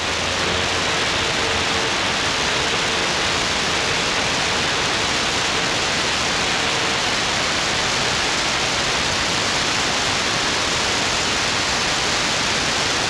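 Steady radio static from an SDRplay RSP1A receiver tuned to CB channel 6 (27.025 MHz): a hiss of band noise on an empty channel between skip transmissions. A faint steady whistle runs through the first half.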